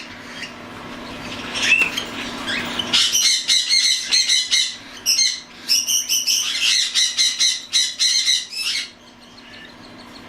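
Young cockatiels, 7 to 9 weeks old and nearly weaned, giving many short, harsh squawks in quick succession for several seconds. In the first few seconds, before the calls start, there is a rising rush of flapping wings from birds in flight.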